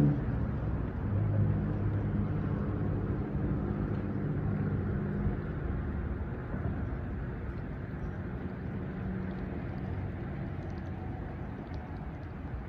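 A distant engine droning steadily and slowly fading away.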